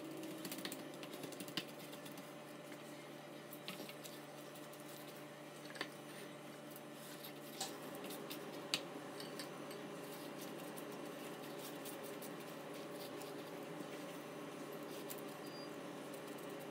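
Faint irregular clicks and light taps over a steady low hum, with the sharpest clicks scattered through the first half.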